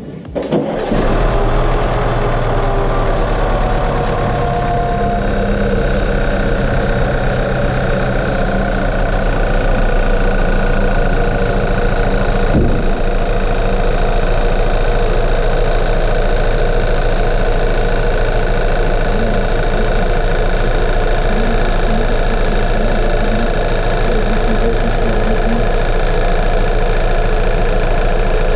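Audi 2.0 TFSI turbocharged four-cylinder petrol engine (second generation EA888) starting about a second in and settling into a steady idle: the first run after its pistons and connecting rods were replaced to cure excessive oil consumption. A single sharp click about halfway through.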